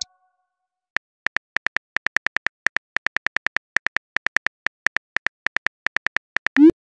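Simulated phone keyboard click sounds from a texting-story app as a message is typed: rapid, uneven taps, about six or seven a second, starting about a second in. Just before the end comes a short rising swoosh as the message is sent.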